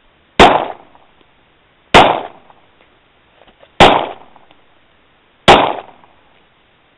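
Springfield 1911A1 .45 ACP pistol firing four single shots, one every one and a half to two seconds, each a sharp crack with a short echoing tail.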